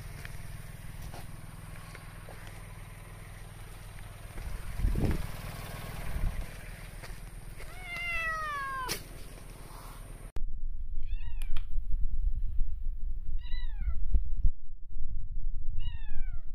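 Domestic cats meowing. One drawn-out meow falls in pitch about halfway through, then three shorter falling meows come about two and a half seconds apart, over low rumbling noise.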